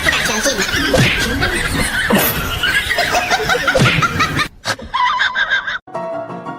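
People laughing and snickering in quick repeated bursts, cut off suddenly about four and a half seconds in. Music starts near the end.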